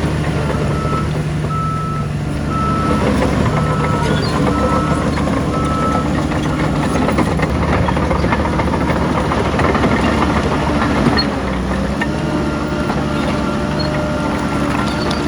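Diesel engine of heavy earthmoving machinery running steadily, with a reversing alarm beeping about once a second for the first six seconds. The engine load rises a little about two and a half seconds in and eases near eleven seconds.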